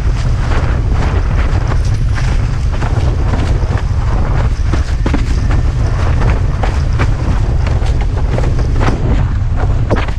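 Steady wind rumble on the microphone of a mast-mounted action camera while windsurfing. Short splashes of the board running through choppy water come several times a second.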